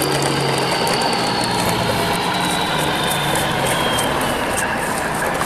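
A line of plastic toy dump trucks rolling over paving stones and dry grass, making a steady rumbling noise with many small crackling clicks. A faint whine slowly falls in pitch across it.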